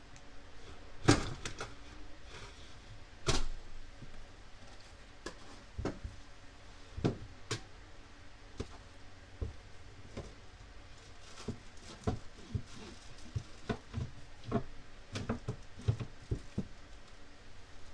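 Irregular knocks, clunks and light rattles of items being handled and set down inside a gun safe, the loudest about a second and about three seconds in.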